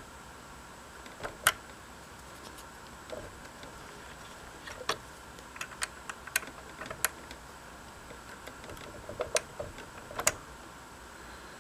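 Faint, irregular small metallic clicks and ticks of an Allen wrench turning and seating in the set screws of the gear collars on a Singer 534 sewing machine's shaft, as the screws are tightened down.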